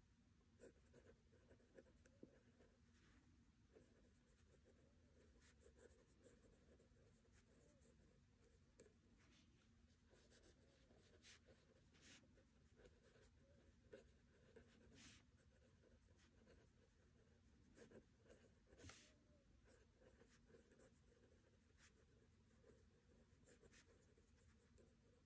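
Faint scratching of a pen writing on paper in a spiral notebook, in short irregular strokes.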